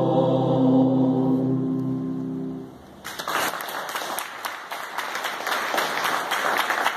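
Mixed choir holding the last chord of a piece, which dies away; about three seconds in, the audience breaks into steady applause.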